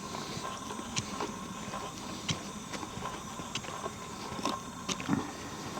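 Footsteps walking along a forest trail: a string of sharp, irregular steps, about one or two a second.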